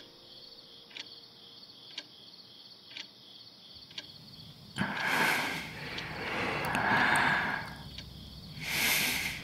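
Night ambience of crickets chirping steadily, with a clock ticking about once a second. From about five seconds in, louder rustling noise comes and goes twice.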